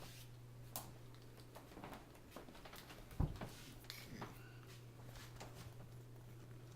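Scattered small clicks, taps and rustles of laptop parts and tools being handled during a keyboard repair, with one sharper knock about three seconds in, over a steady low hum.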